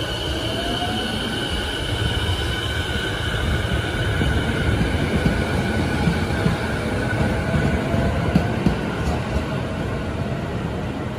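Electric commuter train pulling out of a station: a low rumble of wheels on rail under a steady electric whine, with a motor whine rising in pitch as it gathers speed, and a few light knocks from the wheels.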